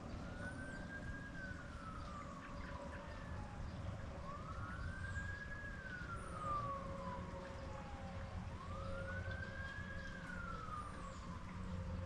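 Faint emergency-vehicle siren in wail mode. Each cycle rises quickly and then falls slowly, repeating about every four seconds: three full cycles, with a fourth beginning near the end. Under it runs a steady low rush of background noise.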